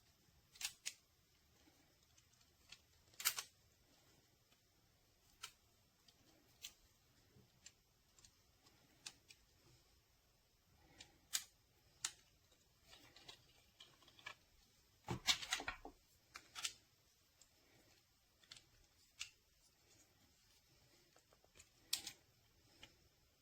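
Camera clamp and its mounting parts being handled: sparse small clicks and taps, with a short cluster of rattling clicks about fifteen seconds in.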